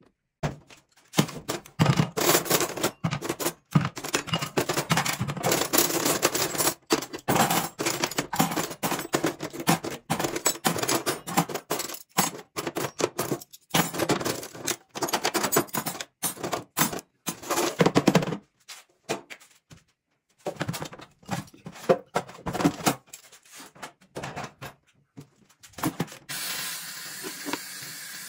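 Metal cutlery and kitchen utensils clattering and rattling as they are handled out of a drawer, in quick irregular clicks that thin out after about two-thirds of the way. Near the end a tap starts running steadily, its water spraying onto utensils in a plastic basin in a stainless steel sink.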